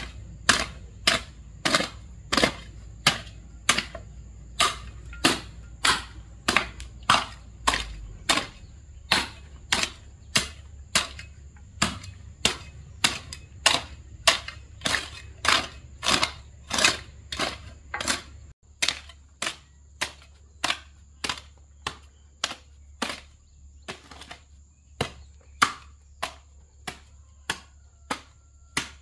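A steady series of sharp knocks or strikes, about two a second, each one short and crisp.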